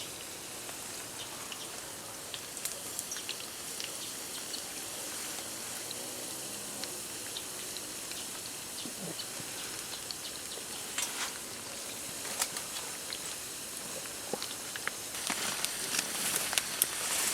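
Rain pattering steadily, with scattered sharp drop ticks, growing heavier near the end.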